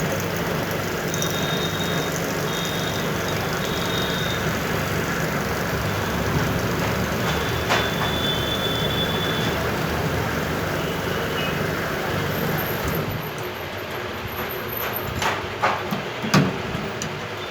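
Steady mechanical rumble with hiss that drops off sharply about thirteen seconds in, followed by a few sharp clicks.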